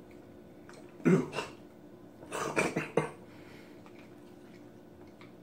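A man coughs and clears his throat in two short fits, about a second in and again at about two and a half seconds, with a mouthful of whole canned sardine, skin and bone included.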